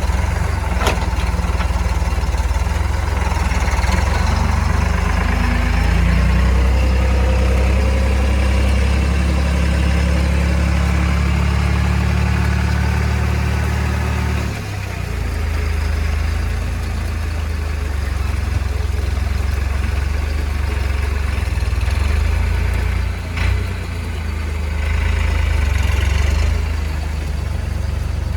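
Heavy machine's diesel engine running steadily, its note shifting about halfway through, with a brief knock a few seconds before the end.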